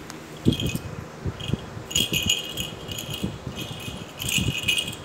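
A baby's plastic rattle toy is shaken in short, irregular bursts of jingling, along with a few dull thumps.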